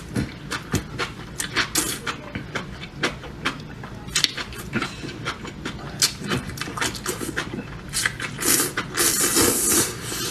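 Close-miked eating of spicy enoki mushrooms: wet chewing and mouth clicks several times a second, with a longer rushing slurp near the end.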